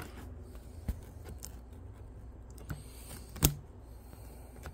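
Sparse handling noises around a cardboard box: a light tick about a second in, and a sharper thump about three and a half seconds in as the phone is set down against the box.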